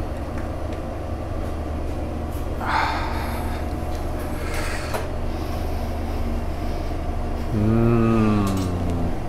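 Steady low hum of commercial kitchen ventilation. About three seconds in, metal tongs scrape briefly against the stainless steel bowl as spaghetti is tossed and plated. Near the end comes a hummed vocal sound lasting about a second and a half.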